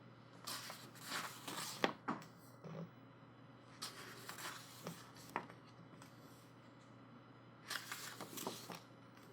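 Pages of a photobook being turned by hand: three bursts of paper rustling, each with a sharp flick or two, about half a second, four seconds and nearly eight seconds in.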